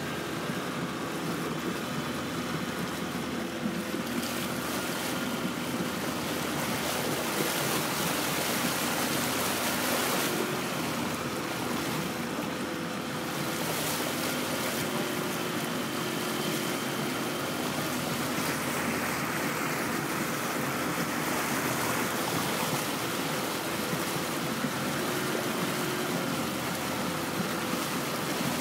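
Water rushing and lapping against the hull of a moving felucca, with wind noise and a faint, steady engine hum underneath.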